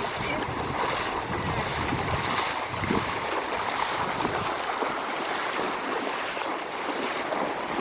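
Water of a shallow stream running and splashing: a steady rush.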